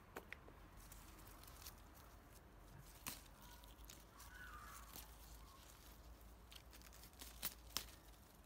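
Near silence with a few faint sharp clicks and snaps as red currant clusters are plucked by hand from the bush, two of them close together near the end.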